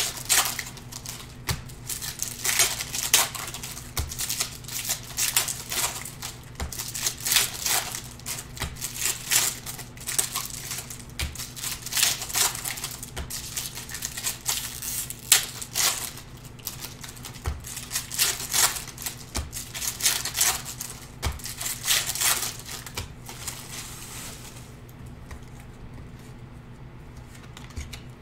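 Foil trading-card pack wrappers being torn open and cards handled: a long, irregular run of crinkles and sharp snaps that dies away about 24 seconds in. A steady low hum runs underneath.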